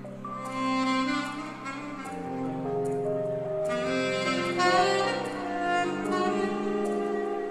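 Music: a saxophone playing a sustained melody over a backing of strings and bass.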